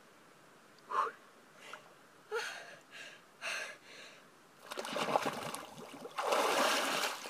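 A woman gasping in short sharp breaths from the shock of icy snowmelt lake water, several quick gasps a second or so apart. From about five seconds in, a loud splash and churning of water as she plunges fully under.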